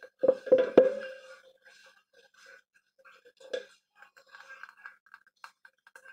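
A screwdriver clicks and knocks against the hollow plastic lid of a water filter housing while the air release valve is fitted. There is a quick run of sharp clicks in the first second, then only faint scattered ticks.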